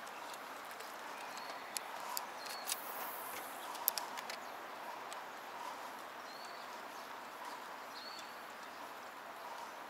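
Outdoor ambience: a steady soft hiss with short high bird chirps every couple of seconds, and a handful of sharp clicks between about two and four seconds in.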